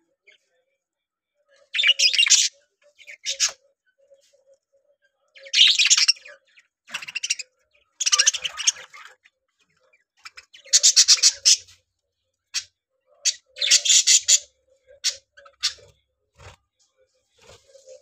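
Budgerigars chattering and squawking in short loud bursts, about seven of them each lasting under a second, with single short chirps in between and only faint calls near the end.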